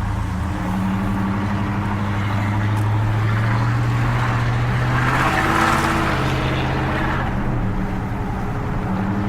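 Truck engine running steadily while driving, a low hum with road noise. A rushing noise swells and fades in the middle, and the engine note drops a little near the end.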